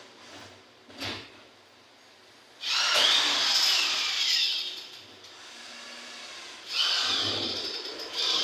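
Electric rivet gun running in two bursts of about two seconds each, its motor whine rising and then falling in pitch as it sets rivets in aluminum panels. A short sharp click comes about a second in.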